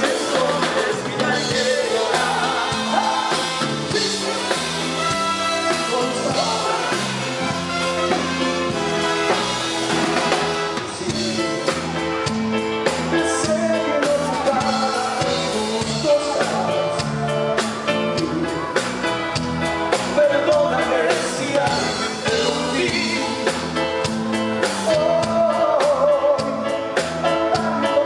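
Live cuarteto band playing, with a male lead singer singing into a microphone over a steady beat.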